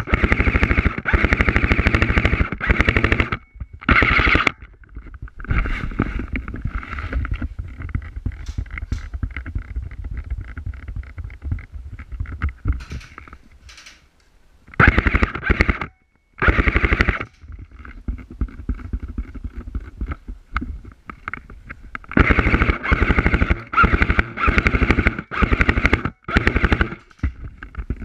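Airsoft rifle firing several full-auto bursts, each a fast rattle of shots. The longest bursts come at the start and near the end, with shorter ones in the middle, and quieter rapid fire rattles on between them.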